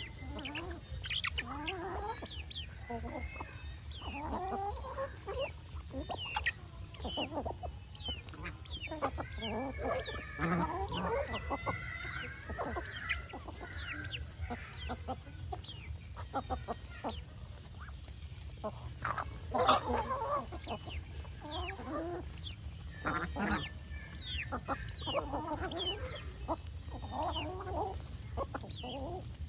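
Flock of domestic ducks and geese calling while they feed: many short, overlapping calls and occasional honks, with one louder call about twenty seconds in, over a steady low rumble.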